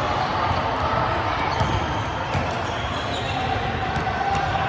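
Balls bouncing and thudding on a gym floor, with players' chatter, echoing in a large hall.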